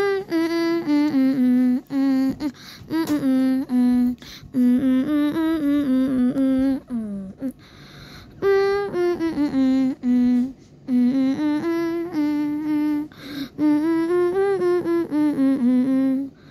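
A person humming a wordless tune: short phrases of held, slightly wavering notes with brief pauses between them.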